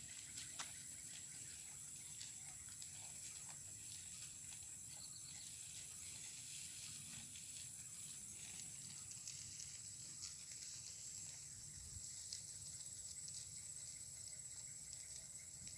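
Insects droning steadily at a high pitch, with faint scattered clicks and rustles.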